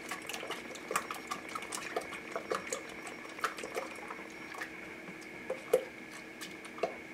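Spatula stirring water, sourdough starter and salt in a stainless steel mixing bowl: irregular light clicks and scrapes against the metal with a soft swish of liquid, while the salt dissolves.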